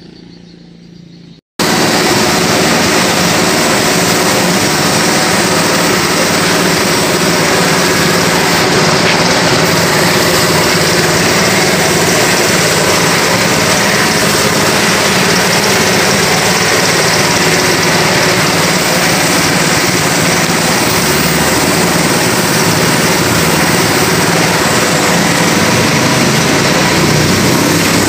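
An engine running steadily at constant speed, loud and unchanging, starting abruptly about a second and a half in.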